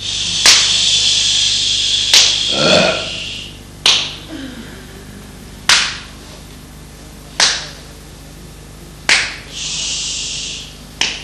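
A series of sharp, slap-like cracks, about one every second and three-quarters. A high held sound runs under the first three seconds.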